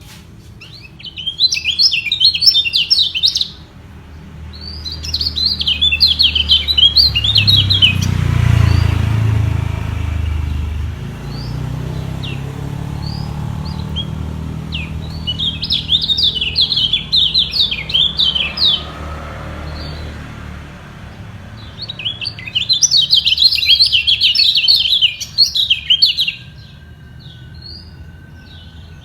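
Kecial kuning songbirds singing against each other in a song battle: four bursts of rapid, high chattering song, each a few seconds long, with pauses between. A low rumble rises and fades through the middle.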